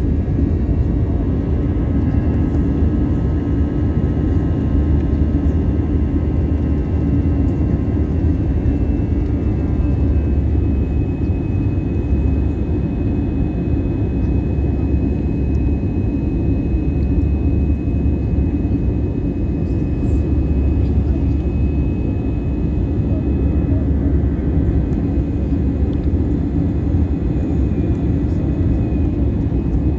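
Steady cabin noise of an Airbus A319 in its climb after takeoff: a loud, even low rumble of the jet engines and airflow, with a faint high steady whine above it.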